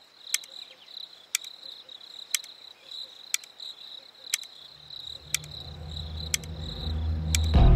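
Crickets trilling steadily, with a sharp tick about once a second throughout. A low hum swells in during the last few seconds and becomes the loudest sound at the end.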